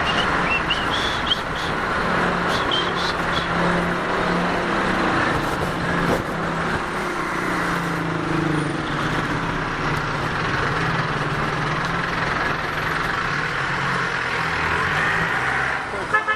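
City street traffic: motor vehicle engines running in a steady drone with a low hum, and a few short high squeaks in the first few seconds.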